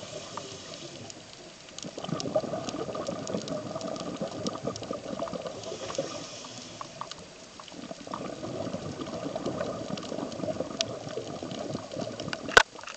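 A scuba diver's regulator exhaust bubbling, heard underwater: two long stretches of bubble noise, with quieter lulls at the start and about eight seconds in, as the diver breathes. Scattered sharp clicks run through it, with one loud click near the end.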